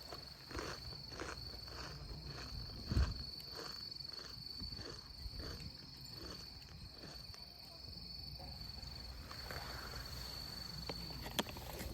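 Footsteps at a steady walking pace, about two to three steps a second, fading out after about eight seconds, with a low thump about three seconds in. A faint steady high-pitched whine runs underneath.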